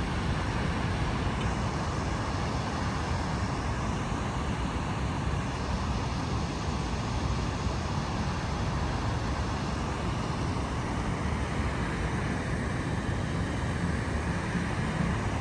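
Steady, even outdoor rushing noise with a heavy low rumble that does not let up.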